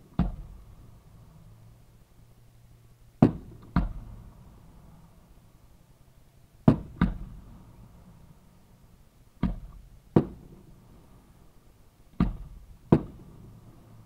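Aerial fireworks shells going off at close range: sharp, loud bangs in pairs a fraction of a second apart, a pair about every three seconds, each bang trailing off briefly.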